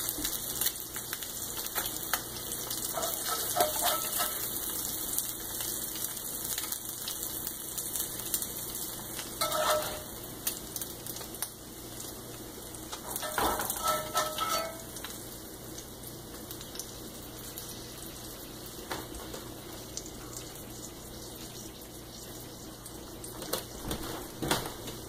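Grease sizzling in a cast-iron skillet, a steady hiss that eases after about ten seconds. A metal spatula scrapes and clinks against the pan and plate a few times, about three, ten and fourteen seconds in, and once more near the end.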